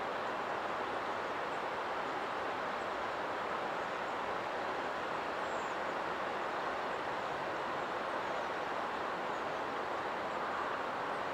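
Floodwater rushing fast across a flooded road and spilling over its edge: a steady, even rush of water.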